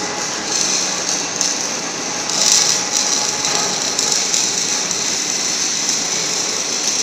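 Steady mechanical running noise of workshop machinery, with a strong hiss that swells a little about two and a half seconds in.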